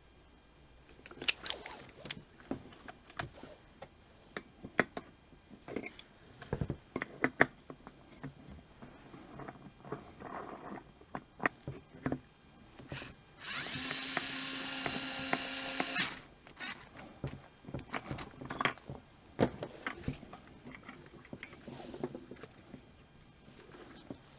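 Parts and tools clicking and knocking as a string trimmer is put back together, with a small electric power tool running steadily for about two and a half seconds a little past halfway.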